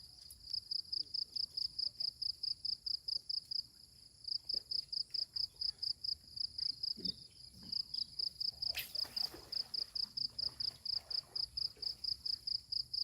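An insect chirping in a fast, even pulse, about six chirps a second on one high pitch, with a short pause about four seconds in. A brief sharp noise cuts in once about nine seconds in.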